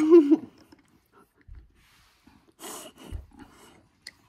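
An infant making a short pitched coo, the loudest sound, in the first half second. After it come faint breathy noises and a couple of soft low thumps.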